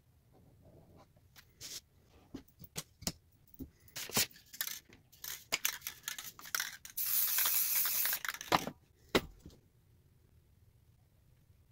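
Aerosol spray-paint can sprayed in one steady hiss of about a second and a half, after a run of sharp clicks and knocks, with two more clicks after the spray.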